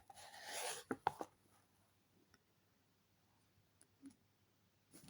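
Brief rustling and sliding of cardboard or paper as a game box and booklet are handled, with a few light clicks about a second in, then near silence with faint ticks.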